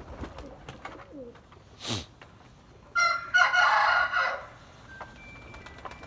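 Pigeons cooing softly and a brief whoosh of wings, then a rooster crows loudly once for about a second and a half.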